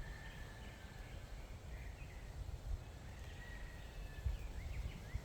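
Quiet outdoor background: a low, uneven rumble with a few faint, short, high bird chirps.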